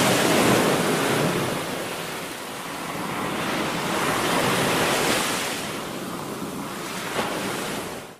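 Sea waves breaking and surf washing through the shallows, swelling twice. Cuts off suddenly near the end.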